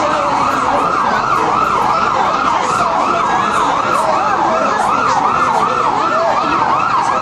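Emergency-vehicle siren yelping loud and close, its pitch sweeping up and down about two and a half times a second.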